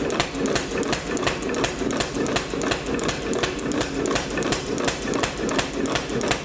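Power hammer striking a hot 3/4-inch round steel bar in a steady run of blows, about three to four a second, flattening and thinning the bar, over the machine's steady running hum.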